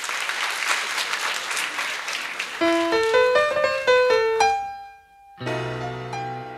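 Audience applause, which gives way about two and a half seconds in to piano music: a quick run of single notes, then a held note that fades away. Near the end a fuller chord with a deep bass note comes in.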